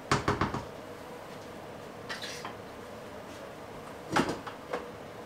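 Kitchen handling clatter at the stove: a quick run of sharp knocks at the start, a few lighter clicks about two seconds in, and another louder knock about four seconds in.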